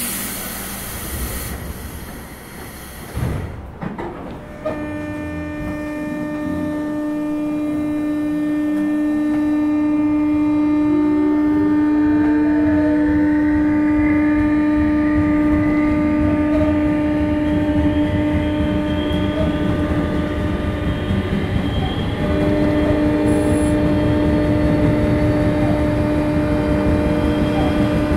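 Series 201 electric train pulling away under thyristor armature chopper control. A hiss of air at the very start gives way about five seconds in to the steady chopper tone with many overtones, while the traction motor whine rises slowly in pitch as the train gains speed.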